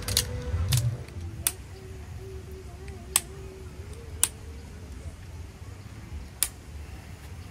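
About six sharp clicks or knocks, irregularly spaced, over a low steady rumble.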